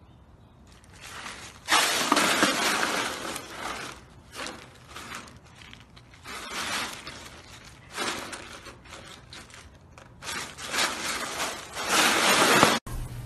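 Ice cubes crunching and clattering as a husky rolls and squirms in a tub full of them, in irregular bursts of a second or two.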